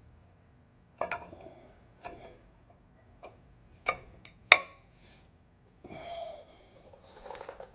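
Brake pad being fitted into the brake caliper bracket: a few sharp metal clicks and taps, the loudest about four and a half seconds in, then two short scraping sounds near the end as the pad is slid into place.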